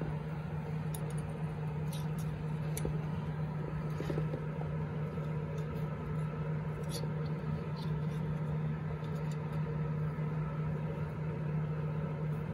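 A steady low hum, with a few faint clicks and taps as fingers handle the metal jackshaft bearing carrier plate on the snowmobile chaincase.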